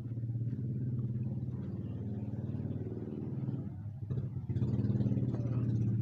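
A vehicle engine running steadily at idle, dipping briefly about four seconds in and then coming back a little louder.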